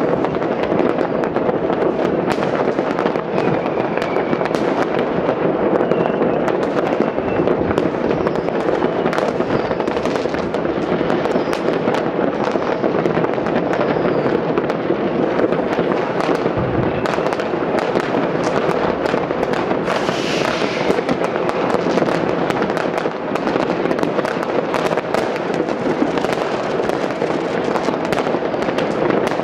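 Countless firecrackers and fireworks going off across a city, merging into a continuous dense crackle and banging with no break. A few short whistles from rockets rise out of it, one louder about twenty seconds in, and a deeper bang comes about seventeen seconds in.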